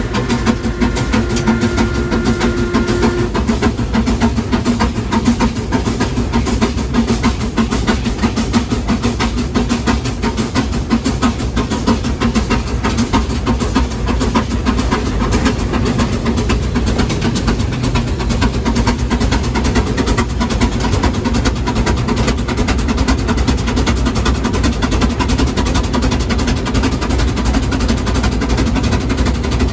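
Steam road locomotive (traction engine) running on the move, heard from its footplate: a steady, fast clatter of engine and gearing over a low rumble. A held tone sounds through the first three seconds or so.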